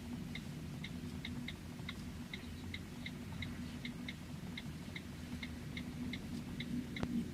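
Light, high ticks at an uneven pace, about two to four a second, over a low steady hum.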